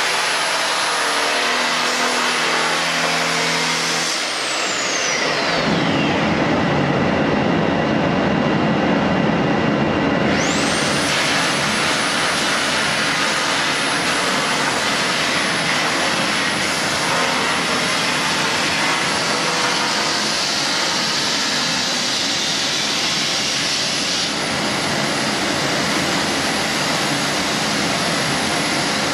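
Electric belt sander running against a laminated wood surface, a steady grinding rush of sanding. Its high motor whine falls sharply in pitch about four seconds in and jumps back up about ten seconds in.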